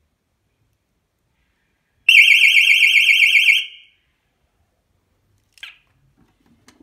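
British Gas Novaguard Delta alarm box's sounder going off: a loud, high-pitched warbling tone, about ten pulses a second, starting about two seconds in and cutting off after about a second and a half. A brief faint chirp and a small click follow near the end.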